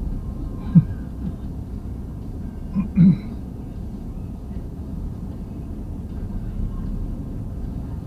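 Steady low rumble of a vehicle driving, with two short vocal sounds, like a murmur or throat clearing, about a second and three seconds in.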